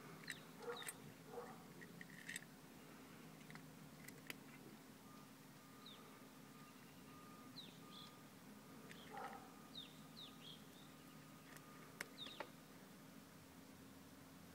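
Near silence outdoors: a few faint, short bird chirps in the second half, and two soft, sharp clicks.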